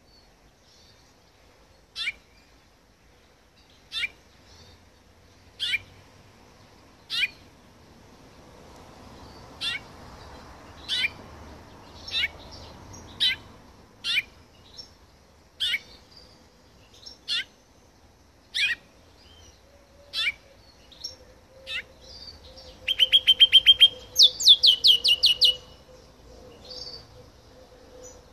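Male house finch giving a short, sharp chirp every second or two, then near the end a loud, fast trill of rapidly repeated notes lasting a couple of seconds.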